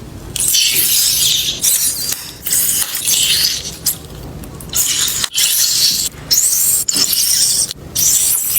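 Slime being pressed and worked by hand, giving a run of short bursts of crackly, sticky noise, each under a second, with brief pauses between them.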